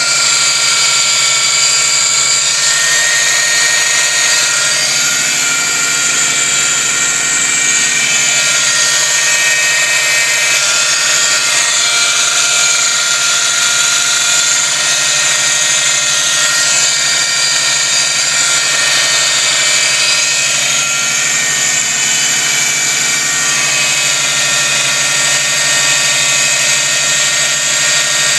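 Engine bay of a 2004 Subaru Impreza WRX STi's turbocharged flat-four running steadily, with a loud, high whining buzz from the driver's side. The owner cannot yet pin down the fault behind the noise.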